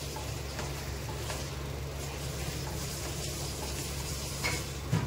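Spice masala sizzling in a kadai while it is stirred, with a few light clicks of the spoon against the pan. A steady low hum runs underneath.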